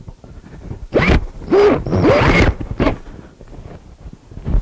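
DeWalt cordless drill driving a screw into the cabinet in a few short trigger bursts, its motor whine rising and falling as it speeds up and slows. A single thump near the end.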